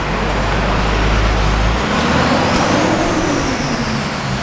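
Heavy road traffic passing close by: a loud low engine rumble for about the first two seconds, then a high whine that rises and falls.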